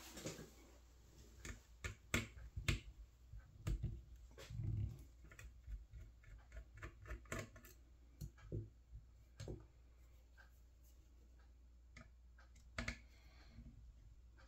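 Irregular light metallic clicks and taps as a small number-one Phillips screwdriver backs screws out of a copier fuser's heater and pad assembly, with a few duller knocks as the metal assembly is handled on the bench.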